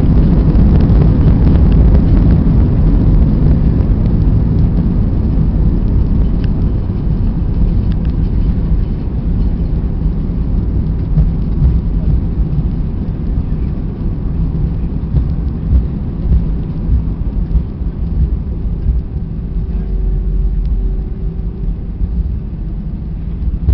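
Cabin noise of an Airbus A320 rolling out on the runway after touchdown: a loud, low rumble of engines, wheels and airflow that fades gradually as the aircraft slows, with a few light knocks near the end.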